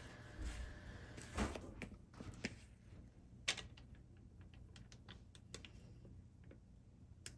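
Scattered light clicks and taps of small hard objects being handled, loudest about one and a half and three and a half seconds in, with a run of smaller ticks after.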